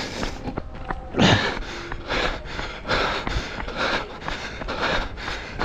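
A runner's hard breathing close to the microphone while running, in rhythmic gusts about twice a second, with low footfall thumps underneath.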